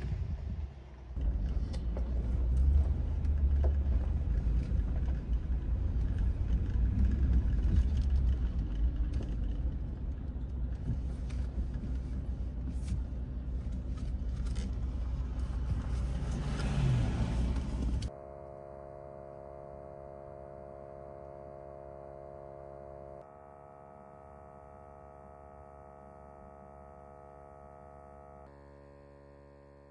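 A truck driving, with a loud, steady low road rumble and scattered rattles. About 18 seconds in it cuts off suddenly to quiet, soft music of sustained chords that change twice.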